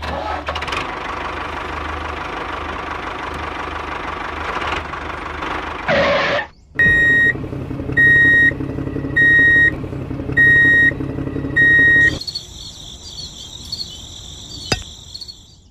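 Toy tractor's engine sound effect running steadily. From about seven seconds in, five evenly spaced electronic beeps sound over it. After that a high warbling electronic tone plays, with a single sharp click near the end.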